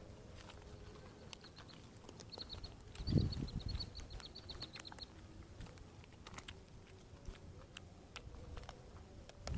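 A bird chirping in a quick, even run of high notes for a few seconds, with a cluster of low knocks and thumps about three seconds in.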